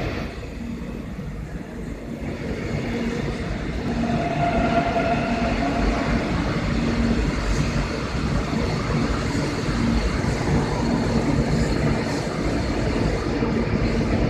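Seoul Metro Line 4 electric train, set 452, passing through the station without stopping. It grows louder over the first few seconds as it arrives, then holds at a steady level of wheels running on rails, with a low motor hum that comes and goes.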